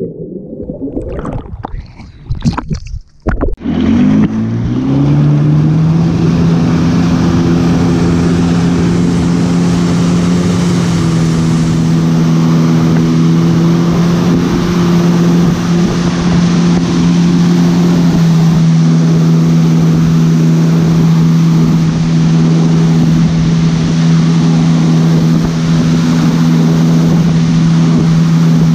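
Underwater bubbling and splashing for the first few seconds, then a motorboat's engine picks up speed about four seconds in, rising in pitch, and runs steadily at towing speed over the rush of its wake.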